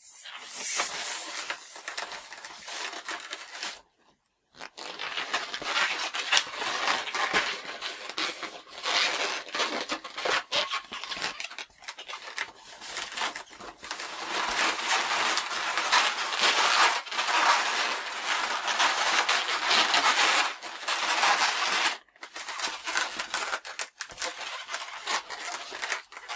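Latex twisting balloons squeaking and rubbing against each other as they are handled and fitted together, a scratchy rubbery noise with many small creaks, pausing briefly about four seconds in.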